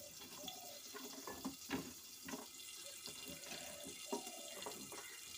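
Chopped onion, garlic and green chillies tipped off a plastic plate into a steel bowl, giving a few soft knocks over a faint steady hiss.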